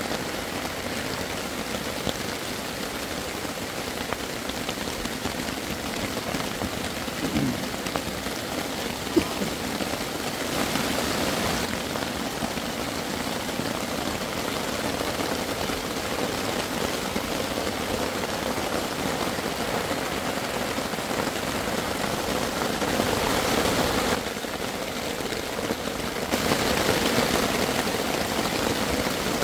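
Steady rain coming down pretty good on trees and grass, an even hiss that gets a little louder near the end.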